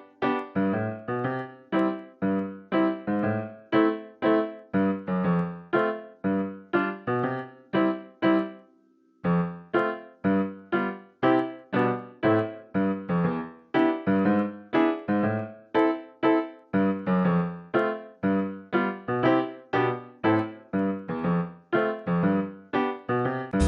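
Background music of keyboard notes and chords struck in a steady rhythm, with a brief pause about a third of the way in.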